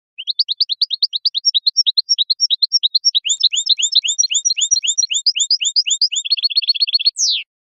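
A caged goldfinch singing one long phrase of rapid, evenly repeated chirping notes, about six a second. Partway through they change to downward-slurred notes, and the phrase closes with a quick trill and one falling note.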